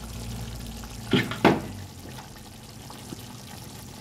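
Gravy simmering and bubbling in a pan. A little over a second in come two brief, loud noises close together.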